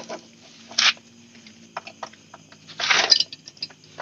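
Allen key clicking and scraping on a bolt in a motorcycle footrest bracket as it is tightened: scattered small metal clicks, a short scrape just under a second in and a longer, louder scraping rattle about three seconds in.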